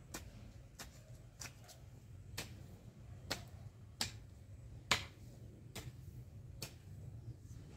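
Long-handled garden hoe chopping into dry soil, a sharp click about once a second with each stroke, over a low steady hum.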